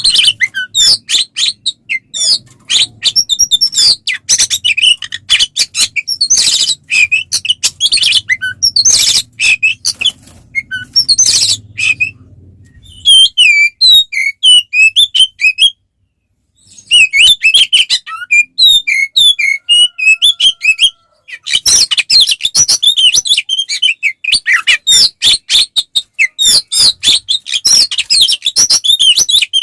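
Oriental magpie-robin (kacer) singing loudly in a fast, unbroken stream of varied chirps and whistles, with a short break about halfway through. This is the aggressive fighting-mode song used to provoke other magpie-robins.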